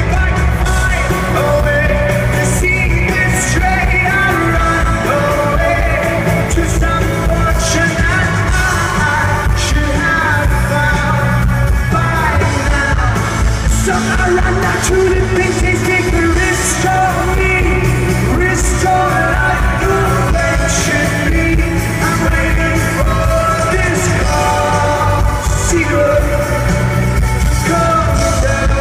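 Live rock band playing a song, with a lead singer's voice over guitars, bass and drums, and yells mixed in, heard from the audience at a concert.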